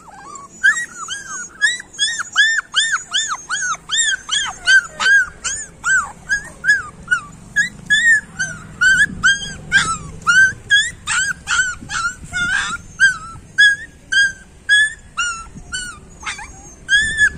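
Young puppy crying in an unbroken run of short, high-pitched whimpering yelps, about three a second, each rising and falling in pitch.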